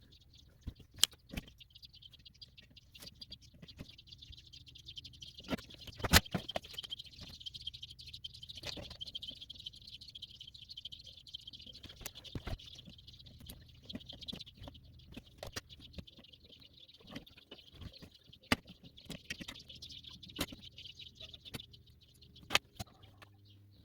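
Steady high-pitched hiss with scattered crackles and clicks from the amplifier under its first power-up test, and one louder knock about six seconds in. The board is faulty: its chip overheats and the supply voltage sags.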